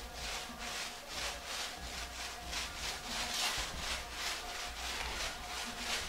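Rapid back-and-forth rubbing strokes by hand on a hard surface, about three a second, keeping an even pace throughout.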